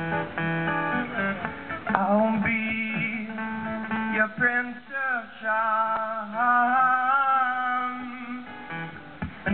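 Acoustic guitar playing a strummed and plucked passage, joined about two seconds in by a wordless sung melody with vibrato.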